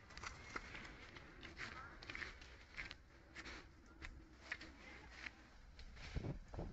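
Faint, irregular footsteps crunching on dry leaf litter and grass, with a few soft rustles.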